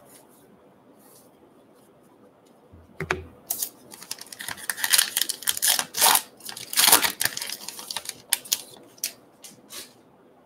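Trading card pack wrapper crinkling and tearing as it is pulled open by hand, a dense run of sharp crackles from about three seconds in until near the end, after a soft knock.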